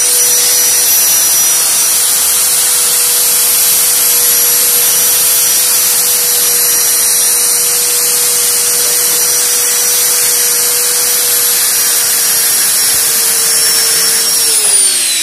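Handheld electric grinder with a cutting disc running steadily at high speed, cutting through a steel chain. It holds one steady high whine, then near the end it winds down and its pitch falls.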